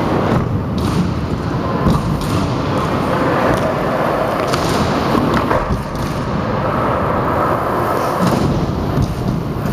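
Small hard wheels of scooters and bikes rolling over the skatepark's ramps and floor, with a few sharp knocks and thuds from landings and wheel impacts.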